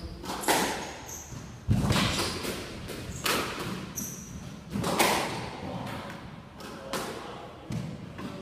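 Squash rally: the ball cracks off rackets and the court walls in sharp, echoing hits about every one to two seconds, with a heavier low thud a little under two seconds in as the loudest. Short high squeaks of shoes on the wooden court floor come in between.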